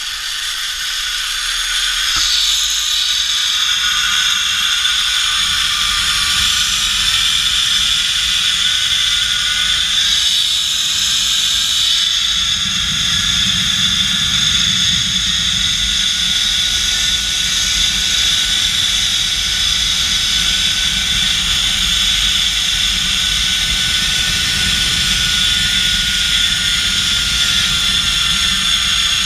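Zip-line trolley pulley running along the steel cable at speed, a whine that rises in pitch over the first ten seconds or so as the rider picks up speed, then holds and sags slightly near the end, under steady wind rushing over the helmet-mounted microphone.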